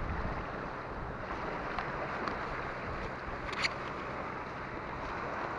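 Steady rushing of a shallow stream flowing close by, with a brief sharp crinkle of a plastic bag being handled about three and a half seconds in.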